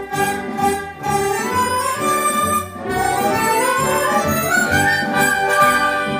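Chinese folk ensemble of erhu, bamboo flute, guzheng, zhongruan and liuqin playing an arrangement of children's songs together, with a long rising run about halfway through.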